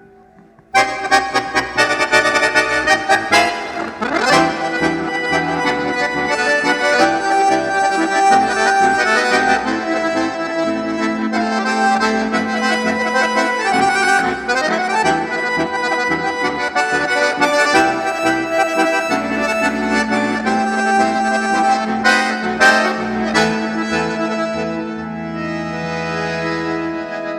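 Accordion (sanfona) playing a lively instrumental piece with quick runs of notes. It starts abruptly under a second in and fades out near the end.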